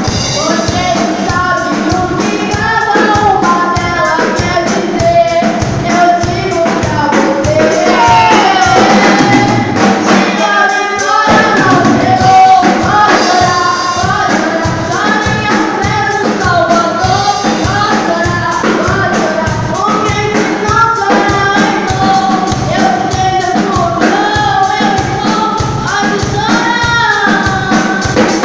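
A group of young voices singing a gospel worship song over a steady drum beat. The drums drop out for a couple of seconds about ten seconds in, then come back in.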